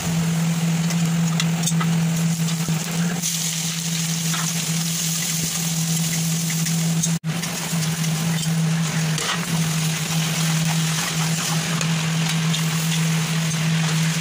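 Hot oil sizzling in a wok as potato chunks and then sliced onions fry and are stirred with a metal spatula, over a steady low hum. The sound drops out briefly a little past halfway.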